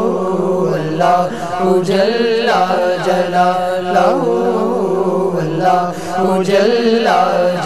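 Male voices singing a hamd, an Islamic devotional hymn, voices only: a wavering, ornamented melody over a steady low drone.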